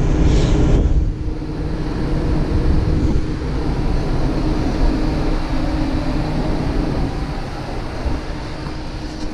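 Steady low rumble and din of a large indoor exhibition hall, with a faint steady hum underneath.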